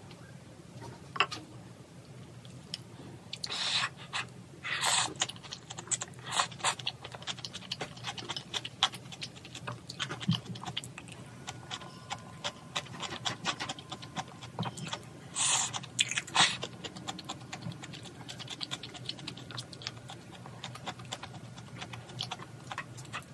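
Malatang noodles eaten with wooden chopsticks from a small ceramic bowl: several short slurps, chewing, and light clicks of the chopsticks against the bowl.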